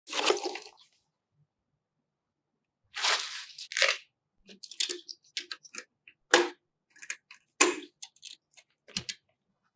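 A string of short crunches, rustles and clicks, like hands handling PC parts and their packaging, with a couple of longer rustles about three seconds in and quick sharp clicks after that, and silent gaps between them.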